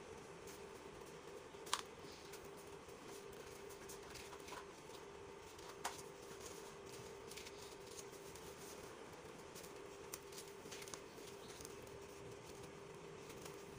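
Dry, gritty dirt clumps crumbled by hand: faint crunching and crackling with grains trickling, and a few sharp cracks, the loudest a little under two seconds in and another near six seconds. A steady low hum runs underneath.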